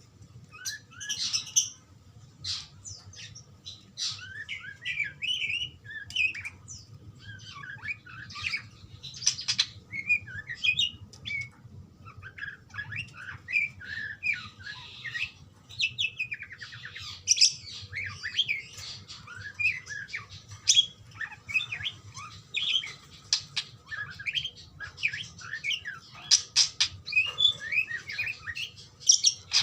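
Budgerigars chattering back and forth: a continuous stream of short chirps, squawks and warbling trills, with a faint low hum underneath.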